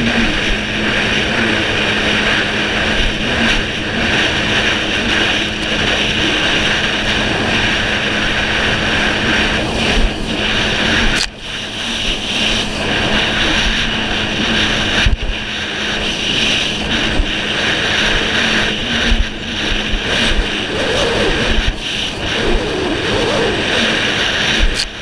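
Yamaha jet ski engine running hard at speed, a steady high drone mixed with rushing water and spray. The sound dips sharply for a moment about eleven seconds in, then picks up again.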